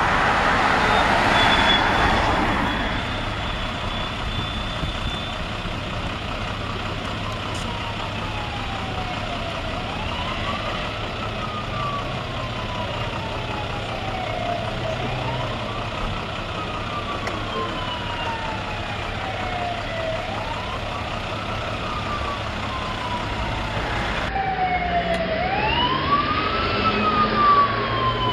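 Emergency-vehicle siren wailing: each cycle rises quickly, then falls slowly, repeating about every five seconds. A fainter second siren sounds over it. A louder rush of vehicle noise swells and fades in the first couple of seconds.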